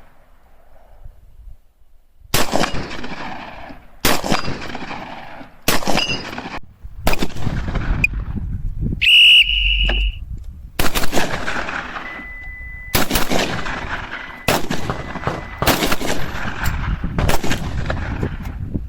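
Typhoon F12 12-gauge semi-automatic shotgun firing a string of about a dozen shots at uneven intervals, some in quick pairs, each a sharp report with a trailing echo. A brief high-pitched tone sounds about halfway through.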